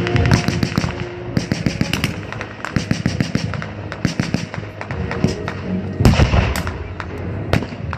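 Blank-firing gunfire from a WWII battle reenactment: rapid bursts of automatic fire and scattered single shots, with the loudest bangs about six seconds in and again near the end.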